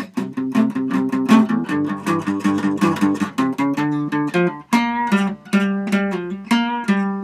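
Acoustic guitar played with the fingers: a quick, even run of plucked notes, then from about four and a half seconds in slower notes that ring on longer.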